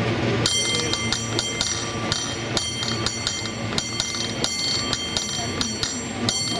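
San Francisco cable car bell rung by hand in a quick, uneven rhythm of ringing strikes, about three or four a second, starting about half a second in. A low rumble from the car running on its rails lies underneath.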